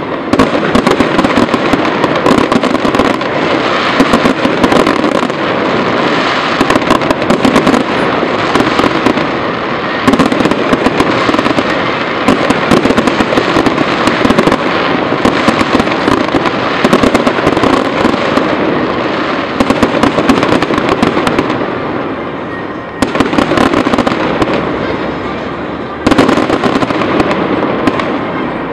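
Fireworks display: a dense, continuous barrage of bursts and crackling shells, rattling with many sharp reports a second. The barrage thins briefly a few times, about 23 seconds in most clearly, before picking up again.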